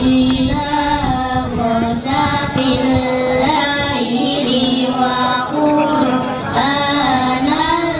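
A child's voice singing, or chanting, a slow, ornamented melody over a microphone and loudspeaker. The notes are held long and waver, sliding from pitch to pitch.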